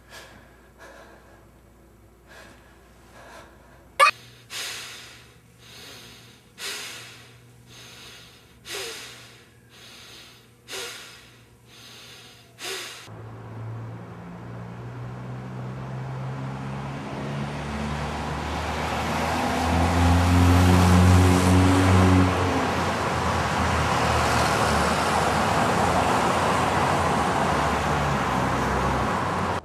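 A sharp click, then a run of about nine short, sharp bursts, roughly one a second. Then a motor vehicle's engine hum and road noise grow steadily louder, hold, and cut off abruptly.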